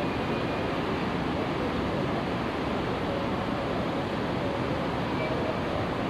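Steady rumble and hiss of a busy city railway station, with no single event standing out.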